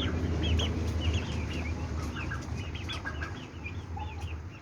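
Young turkey poults, about three weeks old, peeping: many short high chirps, several a second, from a group of birds. A low rumble runs under them and eases off about three seconds in.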